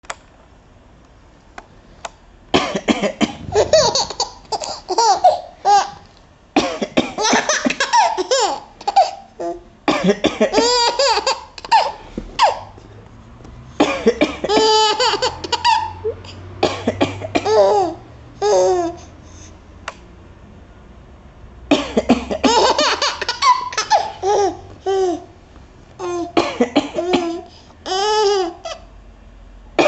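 An adult coughs repeatedly, and a baby of about six months answers each round of coughs with bouts of giggly laughter. The exchange starts a couple of seconds in and keeps going in bouts with short pauses between them.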